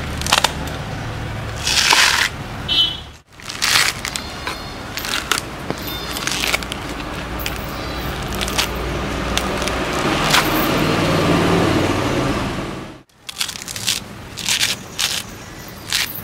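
Coconut husk being torn off on a metal husking spike: fibrous ripping, crackling and scraping in irregular bursts, with two brief breaks where the sound cuts out.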